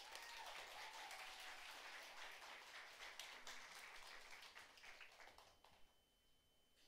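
Audience applause, faint, dying away over about five seconds into near silence.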